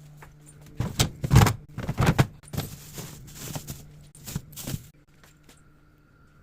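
Things being handled and knocked together: a run of clatters and knocks lasting about four seconds, over a steady low hum.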